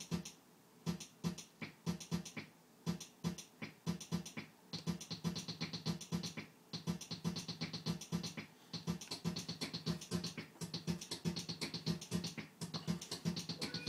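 Sequenced electronic beat of short sample and drum hits from a running Korg Electribe ER-1 pattern. The hits start sparse and become a denser, faster pattern about four to five seconds in.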